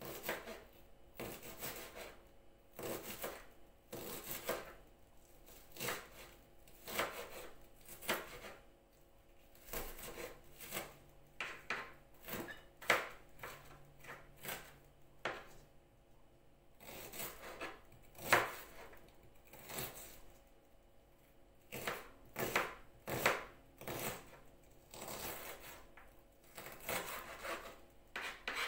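A kitchen knife chopping onion on a plastic cutting board: irregular sharp knocks, often a stroke or two a second, in short runs with brief pauses.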